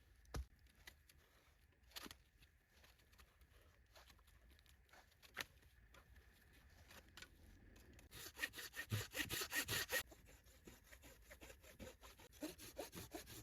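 Wood being cut by hand: a few light clicks and snaps, then, about eight seconds in, two seconds of rapid rasping strokes, which carry on more quietly afterwards.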